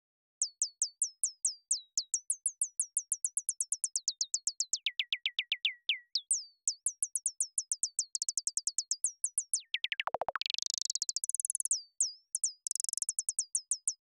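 Synthesized bird tweets from a u-he Zebra 2 patch with a looping pitch envelope: a fast run of short chirps, each a quick drop in pitch, several a second. Their pitch and rate shift as the XY pad is moved. About ten seconds in, one long sweep dives low and climbs back up.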